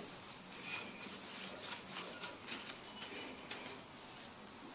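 Wooden rolling pin rolling over floured dough on parchment paper: faint rubbing and rustling with a few soft taps.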